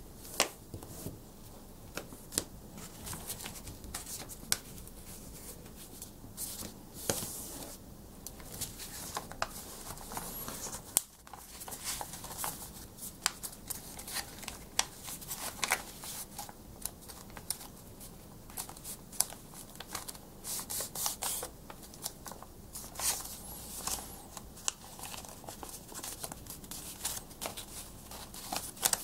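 A sheet of A4 paper being folded by hand: irregular rustling and crinkling, with short sharp crackles as the folds are pressed and creased.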